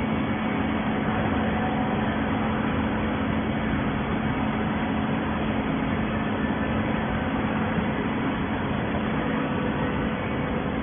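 Waste paper baling machine running steadily: a constant hum under an even mechanical noise, with no strokes or knocks.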